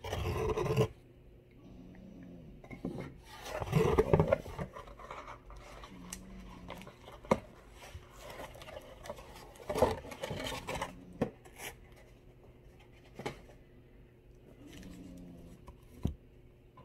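Cardboard comic mailer being opened by hand: flaps and packing scraping and rubbing in several short stretches, with a few sharp clicks and taps between them.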